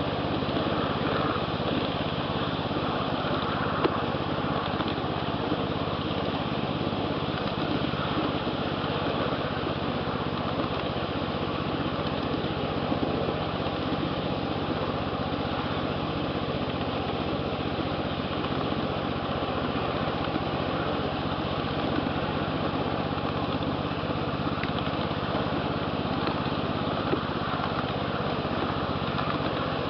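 Small engine of a 1/8th-scale ride-on train running steadily as the train travels along the track, with a few sharp clicks now and then.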